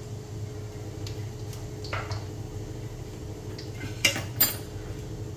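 Metal utensil clinking against an iron kadhai as whole spices go into the hot ghee. A few light taps come first, then two sharp clinks about four seconds in, over a low steady hum.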